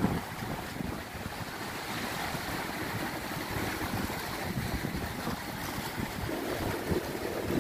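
Sea surf washing on a sandy beach, with wind gusting on the microphone as a low, uneven rumble that picks up near the end.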